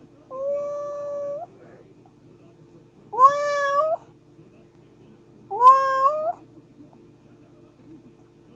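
A kitten meowing three times, each call lasting up to about a second, with the pitch rising at the start, holding steady, then lifting again at the end.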